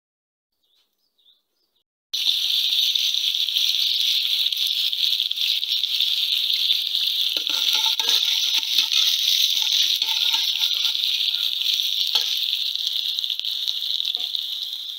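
Chopped onions frying in hot oil in an aluminium pressure cooker: a loud, steady sizzle that starts suddenly about two seconds in as they go into the oil. A steel ladle knocks against the pot a couple of times.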